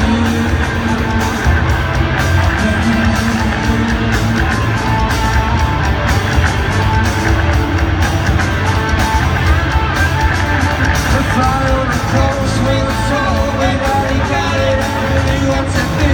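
Live band music with a singer, played loud through a stadium PA and heard from high in the stands. It runs steadily without a break.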